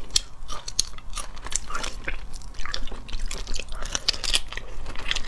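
Close-miked eating of spicy stir-fried shellfish: many sharp, irregular crunches as shells are bitten and broken apart, with chewing.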